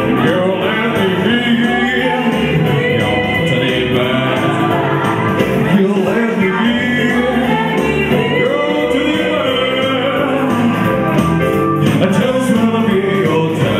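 Live band music: a man and a woman singing into microphones over electronic keyboard backing, played through a PA.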